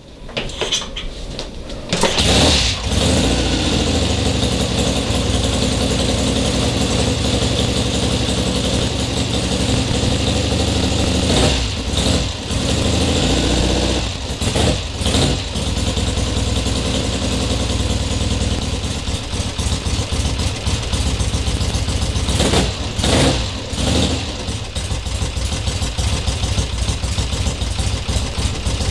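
1968 Triumph TR6R's 650 cc parallel-twin engine starting about two seconds in and then idling, with a few short throttle blips spread through.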